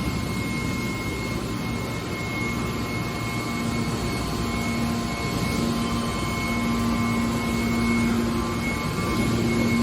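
Hydraulic can baler running: a steady machine hum with a held whine, and a low tone that grows stronger a few seconds in.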